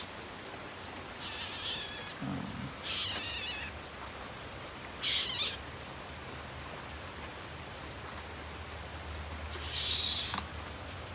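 Coucals give four short, harsh hissing calls spread over several seconds while taking food from the hand, with one dull low knock about two seconds in.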